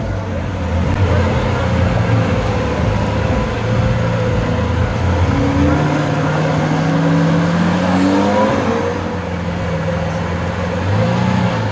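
Lamborghini Aventador LP700-4's 6.5-litre V12 engine running as the car moves off slowly. Its pitch climbs gradually for a few seconds in the middle, and a short rev rises and falls near the end.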